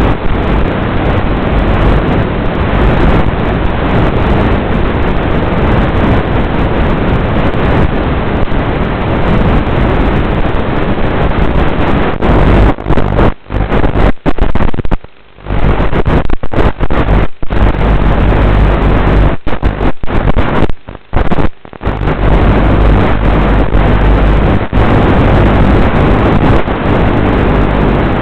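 Loud, rough rushing noise with a steady low hum on the onboard FPV camera's audio of an RC sailboat, most likely wind buffeting the microphone. It cuts out suddenly and briefly several times in the middle.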